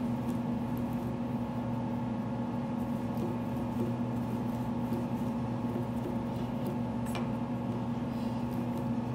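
Steady mechanical hum of room equipment, with faint soft rubbing of hands rolling a coil of clay on a wooden table.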